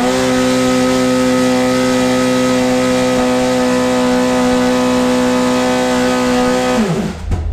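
Red Bull Formula 1 car's engine running stationary, held at a steady high engine speed, then the revs fall away sharply about seven seconds in.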